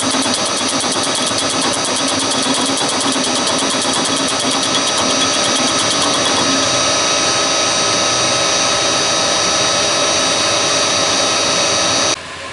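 Milling machine running and cutting, squaring off one side of a spacer block. It makes a steady loud whine with several high fixed tones and cuts off suddenly near the end.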